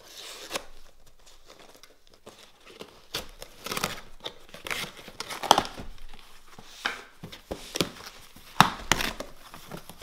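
Cardboard shipping box being opened: a knife slits the packing tape, then the flaps are pulled open and the box is handled. The result is an uneven run of scrapes, rustles and tearing sounds, with two louder sharp ones about halfway through and near the end.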